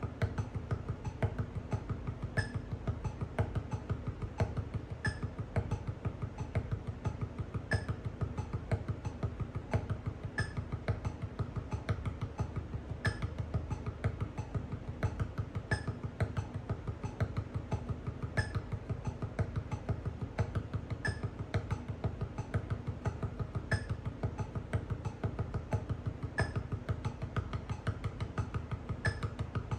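Vic Firth NE1 drumsticks tapping a steady stream of sixteenth notes on a Reflexx CP1 rubber practice pad at 90 BPM, single-handed groups of three and four strokes with accents. A short high ping recurs about once a bar over the tapping.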